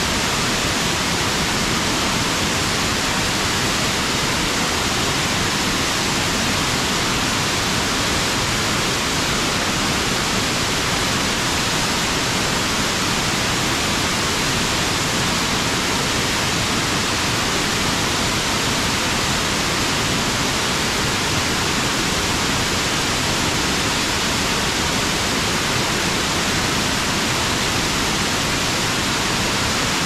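Waterfall rushing: a loud, steady, even roar of falling water with no change through the stretch.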